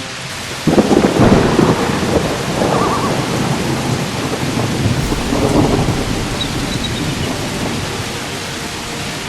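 Heavy rain falling steadily, with a sudden clap of thunder less than a second in that rumbles and fades over several seconds.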